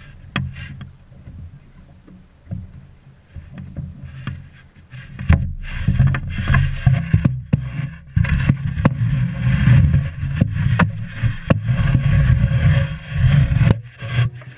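Small wooden sailing longboat under way: wind buffeting the microphone and water rushing and splashing along the hull, with scattered knocks and clicks from the boat and its gear. It grows much louder from about five seconds in.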